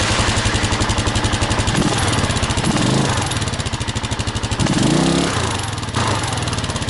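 Kawasaki KLR650 single-cylinder engine running through its stock muffler, which has been punched full of holes with a screwdriver, with an even pulsing exhaust note and the throttle blipped a few times in the middle. The exhaust chirp typical of the stock KLR muffler is still a little bit there but much reduced.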